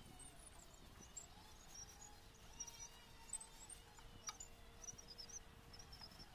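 Near silence with faint, scattered high chirps of small birds over a faint steady hum, and one sharp click a little past four seconds in.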